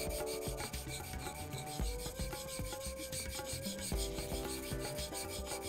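Steel leather knife (kawatachi) being stroked back and forth on a Maruoyama natural whetstone: a continuous run of quick, even rubbing strokes, over background music.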